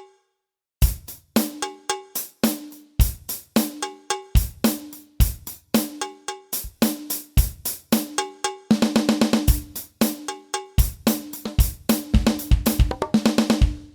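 Yamaha DTX700K electronic drum kit played in a steady groove on one of its unusual preset kit voices: heavy bass drum hits alternating with pitched, ringing tom- and snare-like hits. It starts about a second in, with quick rolls of rapid hits near the middle and again near the end.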